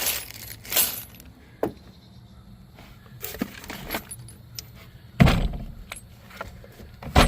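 Loose cartridges and small metal odds and ends clinking and rattling as they are handled and sorted, with scattered clicks and two heavier knocks, one about five seconds in and one near the end.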